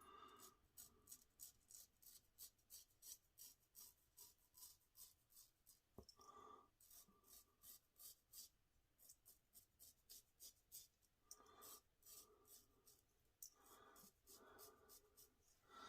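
Wade & Butcher straight razor cutting through lathered stubble: faint, short scraping strokes, about two or three a second, with a couple of brief pauses.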